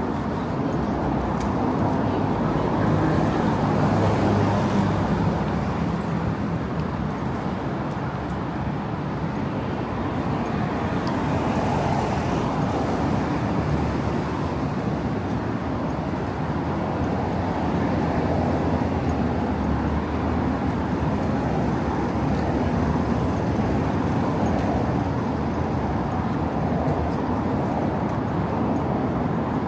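Steady city street ambience of road traffic, with a vehicle engine swelling louder about four seconds in.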